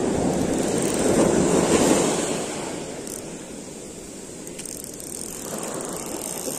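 Ocean surf washing up the beach, swelling to a peak a second or two in and easing off, then building again near the end, with wind on the microphone.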